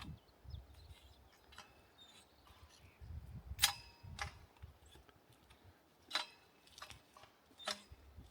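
A few sharp metallic clinks with a brief ringing tone, irregularly spaced, the loudest about a third of the way in, over soft low thumps.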